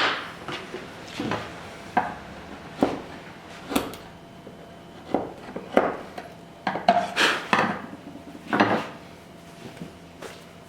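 Hand woodworking tools paring wood out of a lap joint: a string of short, irregular scraping cuts and sharp knocks of steel on wood, about a dozen in all.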